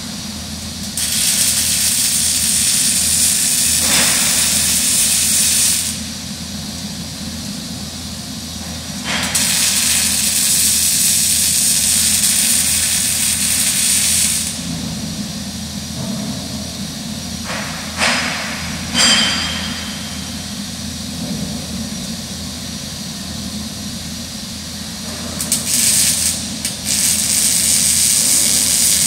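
MIG (gas metal arc) welding arc hissing and crackling as beads are laid on a steel crane truss, in runs. There are two runs of about five seconds each, two short blips, then a longer run near the end, over a steady low shop hum between them.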